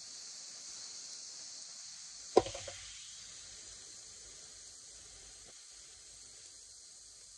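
Chopped onions and mushrooms sizzling in a frying pan on a gas hob, a steady high hiss. A little over two seconds in, a single sharp metal clank with brief ringing, as the pan knocks on the hob; a faint click follows a few seconds later.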